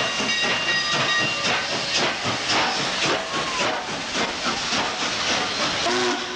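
Cotton Belt 819, a 4-8-4 steam locomotive, working with a loud hiss of steam and exhaust chuffs about twice a second. A short blast of its chime whistle sounds near the end.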